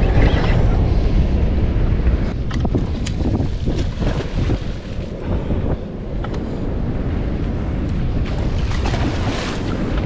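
Wind buffeting the microphone over the wash of the sea against a boat, a steady low rumble, with a few sharp clicks a few seconds in.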